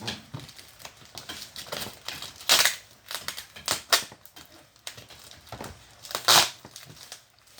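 A packed cardboard box being torn open: irregular crinkling, rustling and crackling of tape, cardboard and wrapping, with two louder tearing rasps, about two and a half seconds in and again past six seconds.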